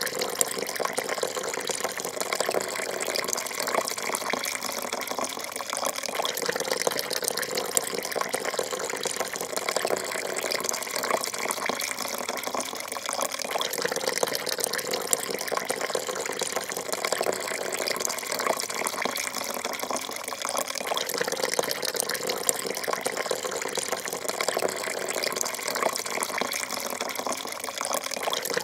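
A thin stream of coffee pouring steadily into a porcelain cup: a continuous, even splashing trickle that does not change.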